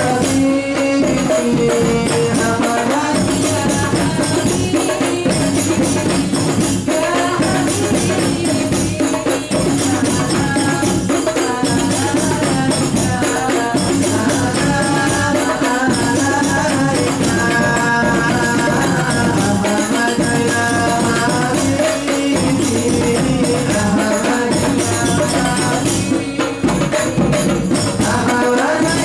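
A rebana (hadroh) frame-drum ensemble playing together in a steady, interlocking rhythm, with a voice singing a wavering melody over the drums.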